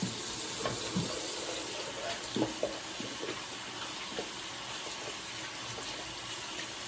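Bathroom sink tap running steadily, with a few splashes in the water.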